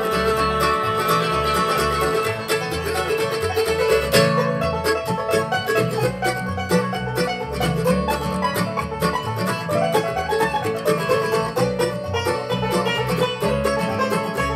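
Live bluegrass band playing an instrumental break, with banjo, guitar and upright bass over a steady bass beat.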